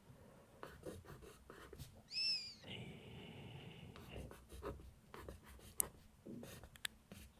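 Pencil writing on journal paper, close-miked: a run of short scratching strokes. About two seconds in, a brief high-pitched squeak rises and falls over the scratching.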